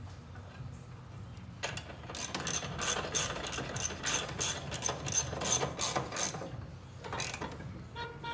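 Socket ratchet clicking in quick, evenly spaced strokes, about four to five clicks a second, as it turns the blade bolt on a lawn mower deck spindle. The clicking starts about two seconds in and stops near the end, with one last click after a short pause.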